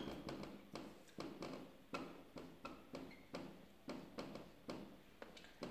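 Marker pen writing on a whiteboard: a faint run of short strokes and taps, about three a second, with a brief squeak about three seconds in.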